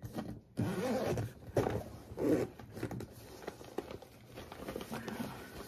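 Zipper of a drone's carrying bag being pulled open.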